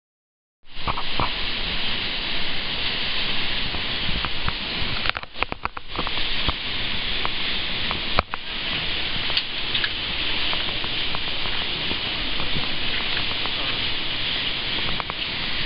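A partly frozen waterfall gives a steady rush of falling water, starting about half a second in, with a few brief clicks around five and eight seconds in.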